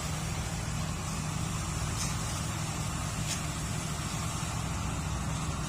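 Heavy truck's diesel engine running steadily, a low even rumble with no horn sounding.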